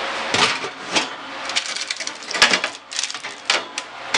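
Metal baking sheet scraping and clanking on an oven's wire rack as it is pulled out of the broiler, a string of sharp clicks and knocks with one sharp click about halfway through, over a steady hiss.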